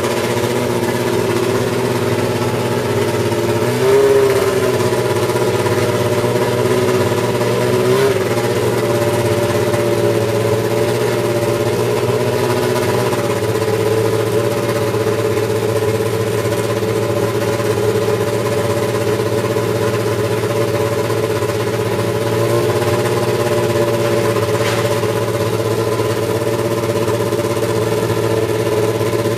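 Brabham BT52 Formula One car's BMW M12/13 1.5-litre turbocharged four-cylinder engine idling steadily. It gives two brief blips of revs, about four and eight seconds in.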